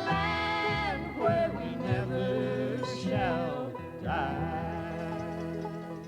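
Closing bars of an old-time country gospel song: singing and string accompaniment hold the final notes, then fade out near the end.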